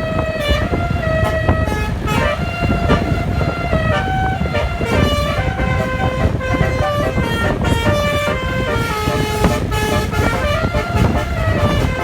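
Basuri horn, the multi-tone 'telolet' air horn of an Indonesian tour bus, playing a tune in quick stepped notes, with a steady low rumble underneath.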